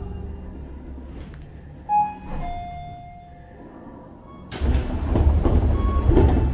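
Tobu 30000-series electric train with Hitachi IGBT-VVVF drive coming to a stop: the steady motor tones die away at the start and brief high tones sound about two seconds in. About four and a half seconds in, the passenger doors slide open with a loud, sudden burst of noise.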